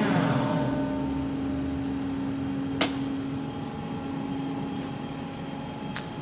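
Weboturn WT 400 CNC lathe's spindle drive winding down, its whine falling in pitch over the first second. The machine then keeps up a steady low hum, with a sharp click about three seconds in and a fainter one near the end.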